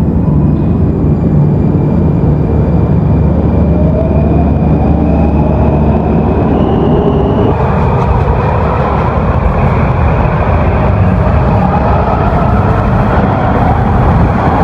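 Washington Metrorail train pulling away and accelerating, a loud steady rumble of the running train with a motor whine that climbs steadily in pitch from about four seconds in.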